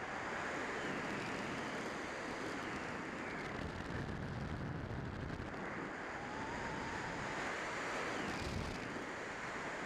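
Steady rush of wind over a camera riding on a Multiplex Heron RC glider in flight, with no motor tone: the glider is gliding under no power.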